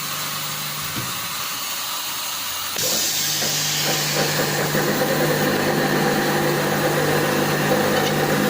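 Steady machine hum. About three seconds in, a louder running machine with a hiss joins in and keeps going.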